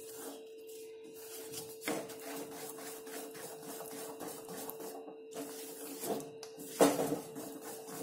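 Wooden spatula stirring and scraping a thick barfi mixture of roasted maida and sugar syrup around a metal kadai, in repeated rubbing strokes, with a sharper knock about two seconds in and a louder one near the end. A steady hum runs underneath.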